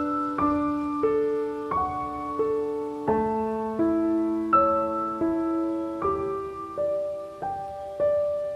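Slow, soft solo piano music: a gentle melody of single sustained notes over held bass notes, a new note about every half second.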